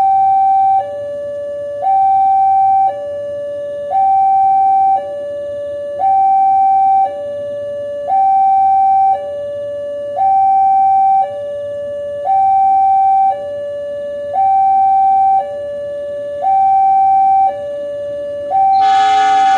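Level-crossing warning alarm sounding, two electronic tones alternating high and low about a second each, as a train approaches. Near the end a locomotive horn blasts over it.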